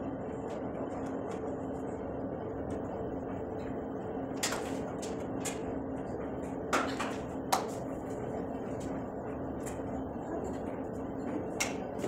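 Scattered clicks and knocks from the plastic joints and tubes of a three-tier clothes drying rack being handled and fitted together, the sharpest two close together about seven seconds in, over a steady low hum.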